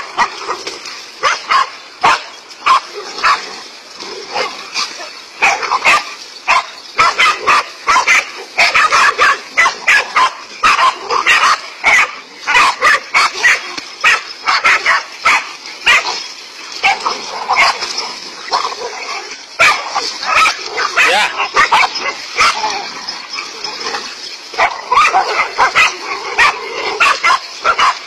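A pack of dogs barking loudly and without pause, several sharp barks a second from different dogs overlapping, as they harass and attack a cobra.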